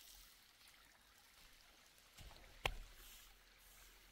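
Faint rustle of threshed grain and chaff pattering back onto the threshing floor as handfuls are tossed by hand to winnow them, with a single sharp tap about two and a half seconds in.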